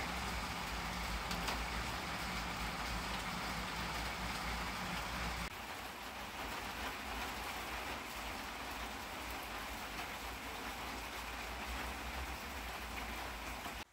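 Steady rain falling, a dense even hiss with a low rumble underneath. A faint low hum in it drops out abruptly about five seconds in.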